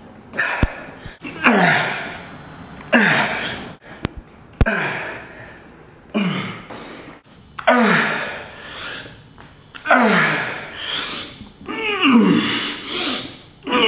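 A man's loud grunts and groans of effort while doing push-ups, one per repetition, each sliding down in pitch, about one every second and a half and coming closer together near the end.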